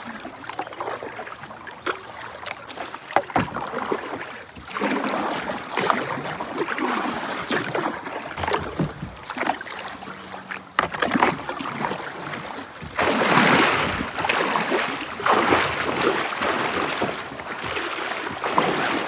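Kayak paddle strokes splashing and dripping on a slow river. In the last few seconds comes louder rushing and splashing water as a kayak is dragged upstream through a shallow riffle.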